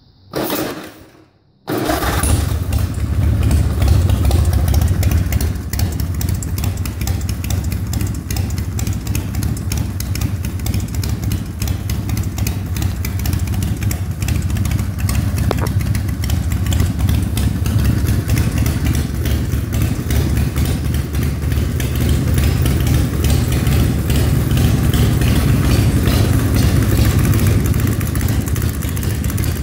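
Harley-Davidson Softail V-twin being started: a brief burst of cranking, a short pause, then the engine catches under two seconds in and idles steadily and loudly through its chrome drag pipes.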